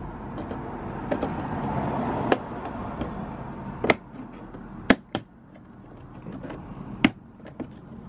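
Trim removal tool prying at a plastic trim piece on a Toyota RAV4 Prime's front door panel, giving four sharp plastic clicks a second or more apart, with a few fainter ticks between.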